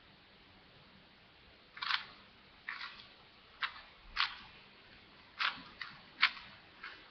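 A 4x4 Rubik's cube being turned by hand: about eight sharp plastic clacks as its layers snap round, irregularly spaced, starting about two seconds in.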